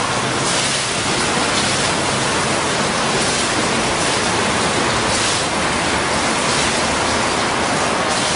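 Water from a digital water curtain falling in sheets and patterns of drops into the basin below: a steady splashing hiss that grows brighter every second or two as each pattern lands.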